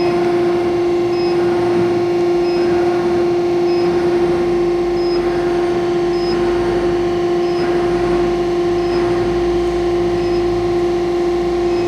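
CNC pipe bending machine running with a steady hum while its servo-driven dolly (carriage) travels back along the bed, adding a low rumble from about four seconds in.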